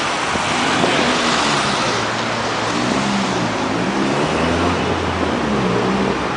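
Road traffic at a busy city intersection, with wind on the microphone. A vehicle engine's hum rises and falls through the middle few seconds.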